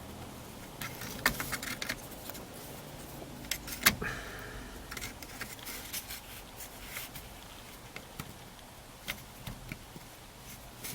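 Scattered light metallic clicks and taps of hand work at the steering column while fishing out the small pin that retains the ignition lock cylinder, with two sharper clicks about a second and about four seconds in.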